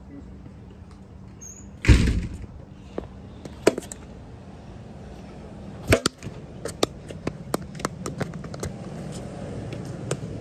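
A loud knock about two seconds in and another sharp knock about six seconds in, followed by a run of faint, irregular clicks.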